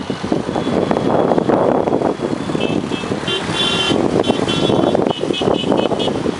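Road traffic passing on a bridge, a dense steady rumble of vehicles. From about two and a half seconds in, a horn honks in a quick run of short beeps.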